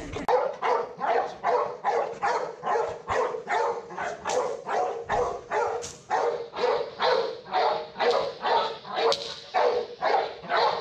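Large XL American Bully barking steadily in a fast, even rhythm, about two barks a second, as he is worked up against a helper in protection training.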